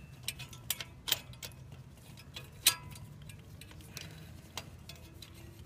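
Irregular light clicks and metal taps from a hand ratchet on a spark-plug socket extension, worked back and forth to line up a spark plug's threads in a Ford 302 V8's cylinder head. A faint low hum runs underneath.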